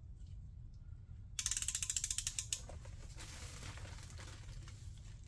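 Socket ratchet clicking rapidly, about ten clicks a second for roughly a second, as it turns the connecting-rod cap bolts on an LTG 2.0 engine's bottom end. A fainter, softer noise follows it.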